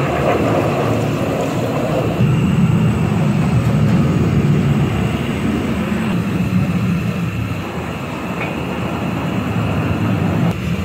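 Steady low roar of a gas stove burner flame under an aluminium chai pot. At the start it is joined by milk being poured into the pot, and the roar settles lower and fuller about two seconds in.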